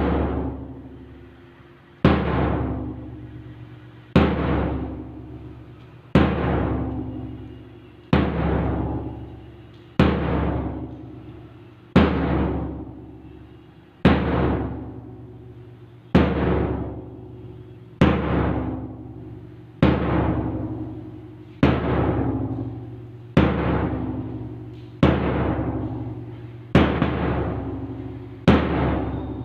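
A large drum struck once about every two seconds, each beat ringing out with a deep tone before the next. The beats come a little faster near the end. It is keeping time for a drill exercise.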